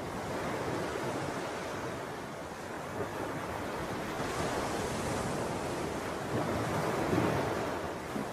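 Ocean surf: waves washing in an even rush of noise that swells and eases over a few seconds.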